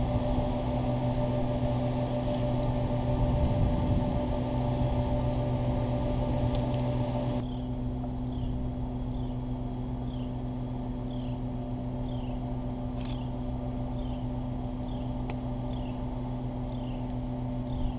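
EMD GP15-1 diesel locomotive running at a distance, a steady engine hum. From about halfway, a bird gives a short falling chirp about once a second.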